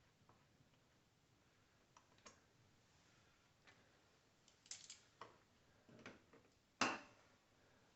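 Scattered light clicks and taps of small parts and hardware being handled, a quick cluster of them past the middle and one sharper clack near the end.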